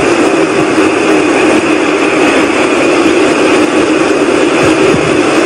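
Loud, steady whooshing drone from the sky, somewhere between a whoosh and a rumble; the recorder insists it is not aircraft noise.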